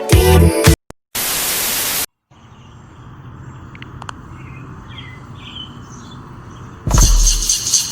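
A burst of static hiss lasting about a second, followed by quiet background ambience with a few faint bird chirps; music cuts out before the hiss and starts again near the end.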